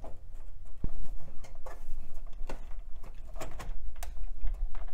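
Irregular plastic clicks and knocks as a slocket adapter carrying a Pentium III and its heatsink is handled and pushed back into the motherboard's Slot 1 inside a computer case.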